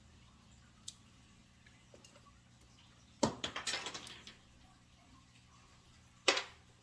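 Gloved hands disconnecting the white wire at an old ceiling light's electrical box: a faint tick about a second in, a run of small metallic clicks and rattles a little past three seconds, and one sharp knock near the end.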